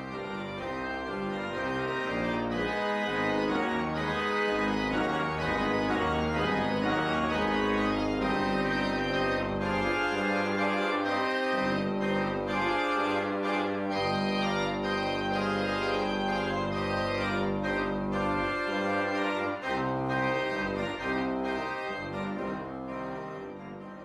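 Outro music of sustained chords that change every second or two, fading out near the end.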